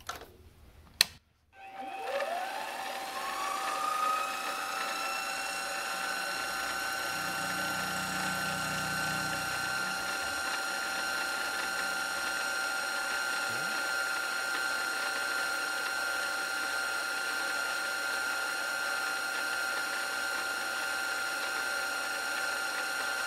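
A click, then a CNC milling spindle spinning up about a second and a half in, its whine rising in pitch and settling into a steady high whine. The end mill then cuts a white Delrin workpiece.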